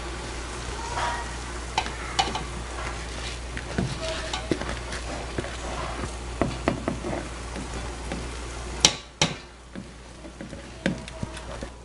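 Rice being stirred into a hot pot of frying onion, tomato and pimentos: a soft sizzle with scattered scrapes and clicks against the pot. A sharp knock comes about nine seconds in, after which the sizzle and a low hum underneath drop away and it goes quieter.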